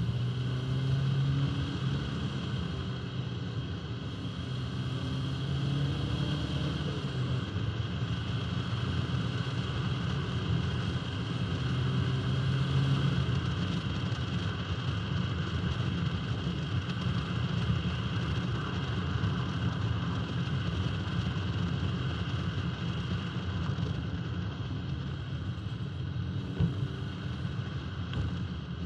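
1971 Alfa Romeo 1750 GTV's twin-cam four-cylinder engine running as the car drives along, its note rising and falling now and then, mixed with tyre and wind noise heard from outside the car beside the front wheel.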